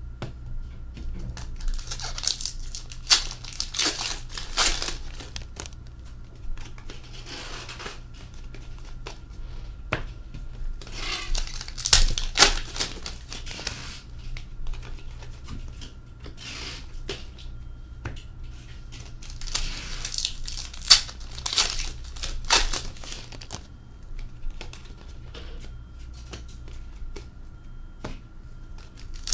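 Hockey card pack wrappers torn open and crinkled, and the cards inside thumbed through and set down, with sharp clicks. It comes in bursts of a few seconds with quieter handling between.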